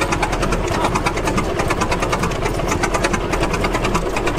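Antique two-cylinder vertical engine running steadily, with a fast, even mechanical clatter over a low hum.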